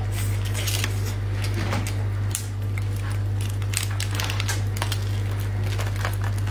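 Cooked crab being broken apart by hand, its shell cracking and legs snapping off in a string of sharp clicks and crackles. A steady low hum runs underneath.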